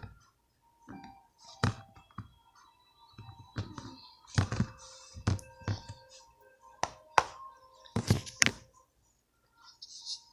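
A series of about ten sharp knocks and thunks at irregular intervals as containers and ingredients are handled, over faint background music.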